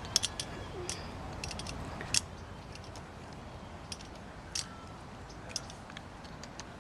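Footsteps crunching in sand: irregular sharp crunches and clicks, clustered in the first two seconds and sparser after, over a steady low background rumble.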